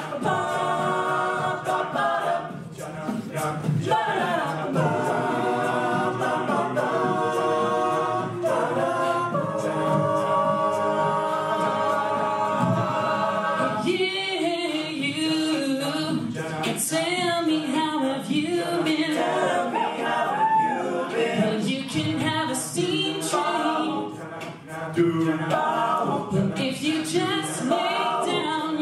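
Male a cappella group singing in close harmony: sustained held chords for the first half, then from about halfway a male lead voice sings over the group's backing vocals. A beat of vocal percussion ticks underneath.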